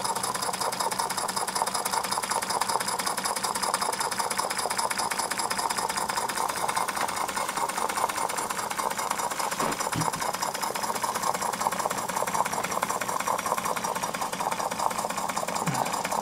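Mamod SP8 model steam beam engine running steadily on live steam with its regulator only slightly open, making a rapid, even mechanical beat.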